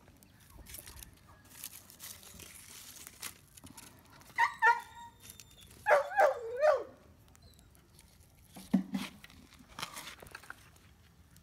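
A dog giving short high-pitched whining cries: a brief cluster about four seconds in, then a louder run of wavering cries about six seconds in.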